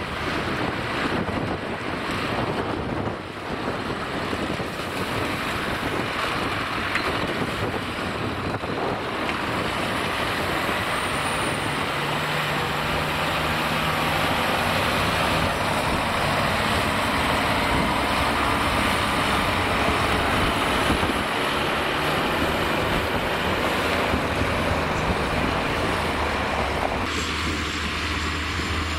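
Scania P440 6x6 dump truck's inline-six diesel engine running steadily as the loaded truck drives slowly through mud.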